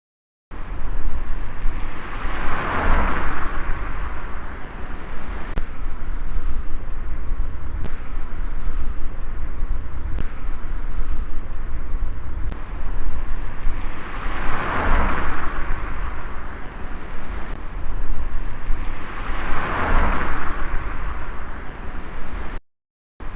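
Outdoor vehicle noise: a steady low rumble with three swells of noise that build and fade, about 3 seconds in, around 15 seconds and around 20 seconds, like vehicles passing by.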